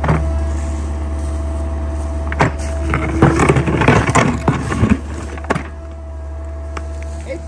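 Sany mini excavator's engine running steadily while the bucket digs into the ground, with a spell of scraping and clattering as the bucket teeth tear through soil and roots from about two and a half to five and a half seconds in.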